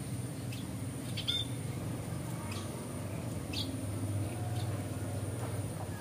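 Short, sharp bird chirps at irregular intervals of about a second, over a steady low background hum.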